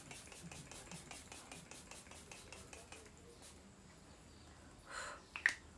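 Fine-mist pump spray bottle of rose water toner sprayed many times in quick succession, a rapid train of faint short hisses that stops about three and a half seconds in.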